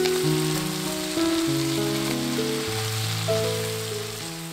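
Pork belly and shishito peppers sizzling as they are stir-fried in a pan, a steady hiss, over background music of held notes.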